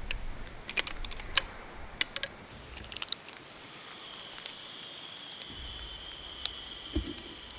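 Aluminium camping-table frame poles clicking and knocking into their hub sockets, a run of sharp clicks in the first three seconds and a couple more near the end. A steady high buzz starts about three seconds in.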